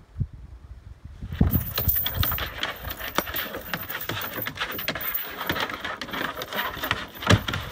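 Metal tie-out chain rattling and jangling hard against its post as a tethered dog lunges and grips a bite sleeve. It starts about a second and a half in and keeps up in quick irregular clatters, mixed with scuffing and knocking on the wooden table top.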